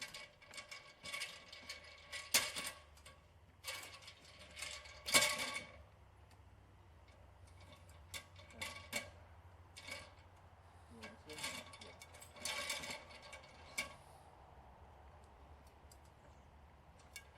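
Ladder being handled and set up: a string of irregular metallic clanks and clicks that ring briefly, busiest in the first six seconds and again near the middle.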